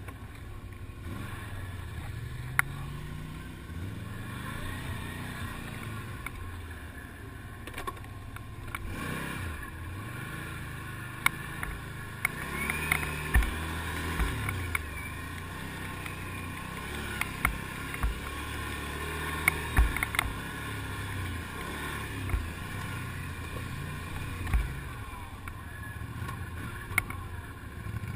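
ATV engine running on a woodland trail, its pitch rising and falling again and again as the throttle is worked. Scattered sharp knocks and clicks, most of them in the middle part.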